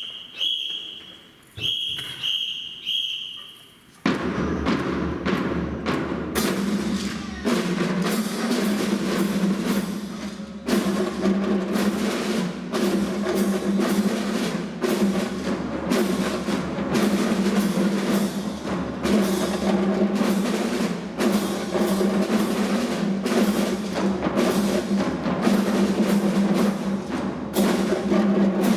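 A few short high tones, then upbeat music with a steady drum beat that starts about four seconds in and keeps going.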